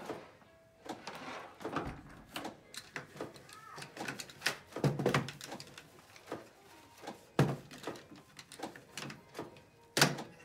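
Hard plastic canister-filter parts, the canister lid and the white stacked media baskets, being handled and set down: a string of clicks and clattering knocks, with louder thumps about five seconds in, at about seven and a half seconds and near the end.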